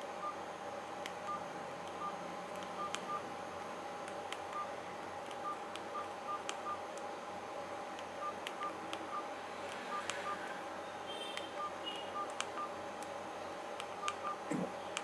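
Micromax X342 keypad phone's key tones: short, same-pitched beeps with light key clicks at irregular intervals as the navigation keys are pressed through the menus. A steady hum runs underneath.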